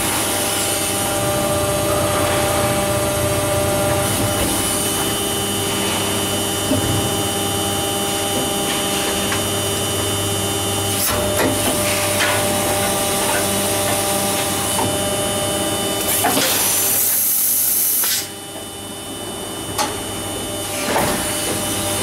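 Injection moulding machine running through a moulding cycle with the mould closed: a steady machine hum with several held tones. Near the end comes a loud hiss lasting a second or two, then the running noise drops suddenly and a couple of knocks follow as the mould starts to open.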